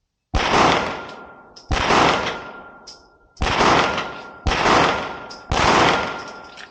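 Five pistol shots from a Staccato P Duo 2011-style handgun, fired one-handed at an uneven pace, each crack trailing off in a long echo.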